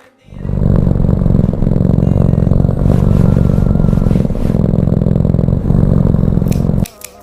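A loud electric motor runs steadily for about six and a half seconds. It starts just after the beginning and cuts off abruptly near the end.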